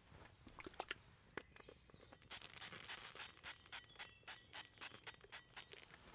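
Faint wood fire crackling and snapping under a cast iron pan, with a soft hiss from about two seconds in as olive oil is sprayed from an aerosol can into the hot pan.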